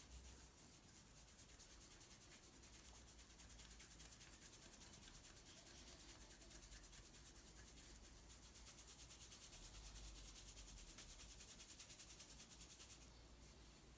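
Faint, fast rubbing of hands over skin during a massage: an even, rhythmic hiss of friction that stops about a second before the end.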